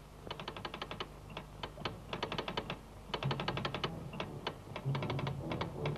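Morse telegraph apparatus clicking out rapid runs of dots and dashes in irregular groups. Low music tones come in faintly about halfway through.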